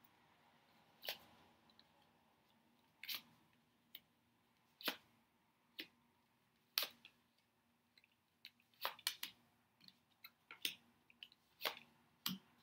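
Tarot cards being handled at a table: short, crisp card snaps and taps, about one a second at first, then a quicker run of several in the last few seconds.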